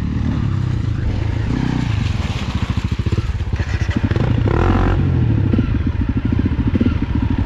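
Trail-bike engines running: the close single-cylinder four-stroke of a Honda CRF250 at low revs, with the engines of other dirt bikes revving as they ride down a muddy track. The engine note picks up, with a brief burst of revs around the middle.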